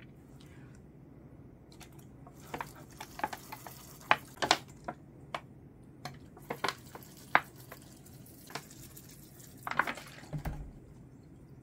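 Small handling noises from repotting work: about a dozen short clicks and taps spread over several seconds, then a brief burst of rustling with a low thump near the end.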